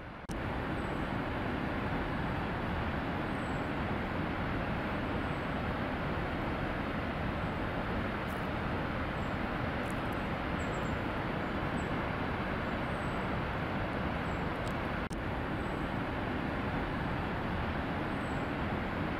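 Waterfall of more than 100 m, heavy water crashing down rock into spray, a steady, full rushing noise that steps up louder a fraction of a second in.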